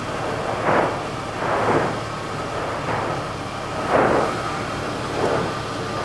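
Fimmvörðuháls fissure eruption's lava fountains: a steady roar broken by four short bursts at irregular spacing, the loudest about four seconds in.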